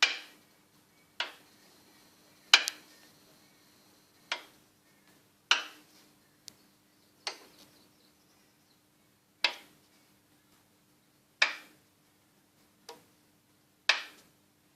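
Sharp metal-on-metal knocks at an uneven pace, roughly one every second or two, each ringing briefly: a loose piston being rocked against a cylinder wall, showing the piston knock of a worn, narrow-skirted Priora piston.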